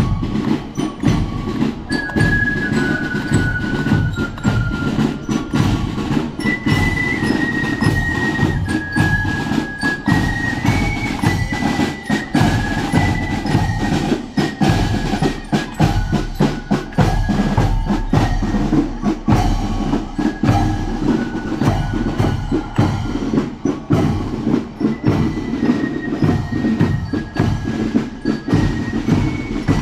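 Marching band playing: a steady drum beat under a melody of high notes that steps up and down.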